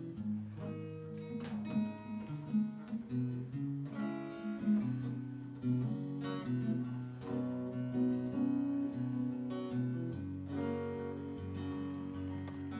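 Acoustic guitar strumming and picking chords, the instrumental opening of a song, with chord changes about every second.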